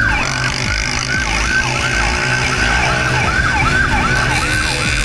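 Police motorcycle siren in a fast yelp, its pitch sweeping up and down about three times a second, over a low rumble of engine and wind.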